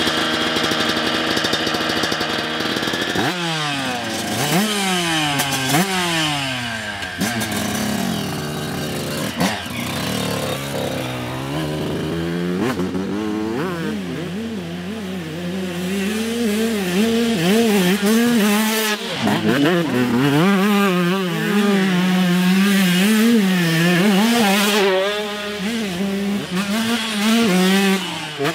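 Single-cylinder two-stroke engine of a 2003 Suzuki RM125 motocross bike being ridden hard. It revs high at first, then about three seconds in climbs through the gears with repeated rising sweeps in pitch that drop at each shift. After that it runs at lower revs that rise and fall as the throttle is worked.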